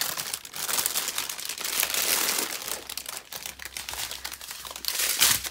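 Thin clear plastic packaging crinkling as a bag of diamond painting drill packets is handled and unwrapped, with a louder rustle near the end.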